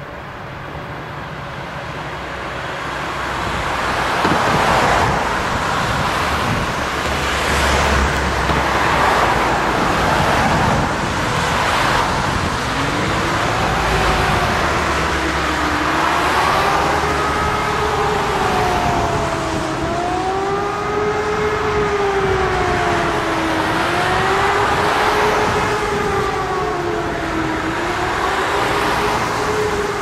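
Road traffic passing, then about 13 seconds in a civil-defence siren starts up during a siren test. Its pitch climbs and then wails up and down, about one rise and fall every four seconds, with cars still going by underneath.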